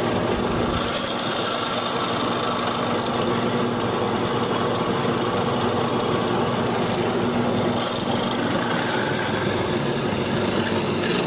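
Drill press motor running steadily with a hollow-chisel mortising attachment, its auger and square chisel boring and chopping into a wooden workpiece. There is a steady hum and a constant level.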